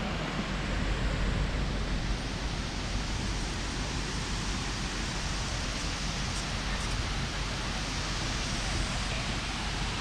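Waterfall: the steady rushing noise of falling water, even and unbroken.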